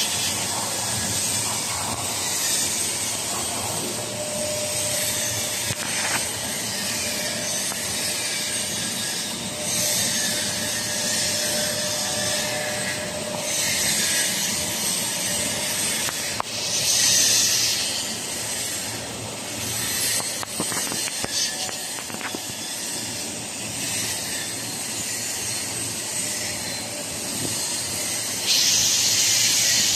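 Handheld laser welding machine running: a steady hissing, louder for a few seconds around a third of the way in, again a little past halfway, and near the end.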